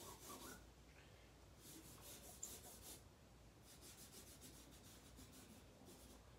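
Faint scratchy strokes of Sharpie markers drawing on fabric bags, coming in short runs with brief pauses between.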